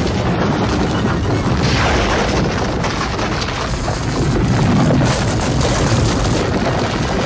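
Loud, dense music with a heavy booming low end.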